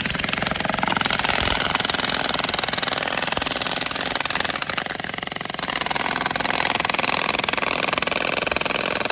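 Two jackhammers hammering together into a geode-bearing wall of rock, a continuous fast rattling that starts abruptly and keeps on with only a slight dip about halfway.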